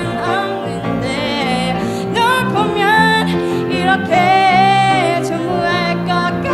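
A woman singing a slow song live at a microphone, with piano and guitar accompaniment.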